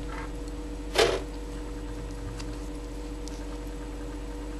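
Steady electrical hum in a small room, with one short burst of noise about a second in.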